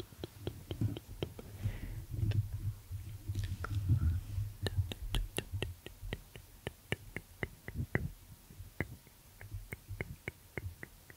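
Fingertip tapping and scratching close on a microphone's body: a run of crisp clicks, about three to four a second, over a low handling rumble that is heaviest in the first few seconds.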